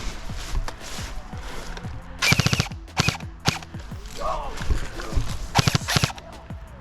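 Airsoft gun firing two short full-auto bursts of rapid shots, each about half a second long, a few seconds apart.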